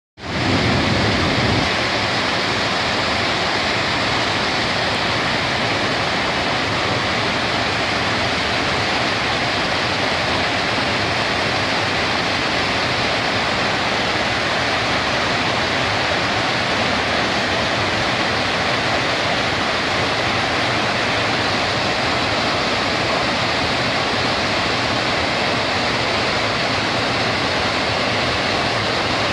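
Steady rush of water spilling over a long, low concrete dam and crashing into churning whitewater below.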